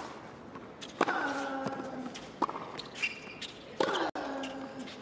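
Tennis rally on a hard court: racquets strike the ball three times, about a second and a half apart. A player gives a long grunt that falls in pitch on every other stroke, his own shots.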